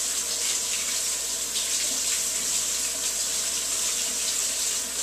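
Kitchen tap running steadily into the sink while hands are washed under it.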